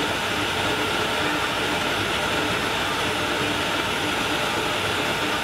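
CNC router spindle engraving three-layer HDPE plastic sign board, with its dust collection pulling through the hose: a loud, steady machine noise, with a faint low tone coming and going as the gantry moves.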